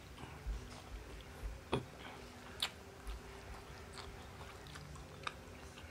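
Close-up mouth sounds of a person chewing a mouthful of rice and fried egg eaten by hand: soft wet smacks and clicks at irregular intervals.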